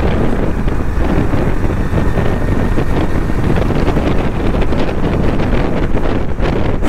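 Steady, loud wind rushing over the microphone of a motorcycle riding at highway speed, with the bike's engine and road noise underneath.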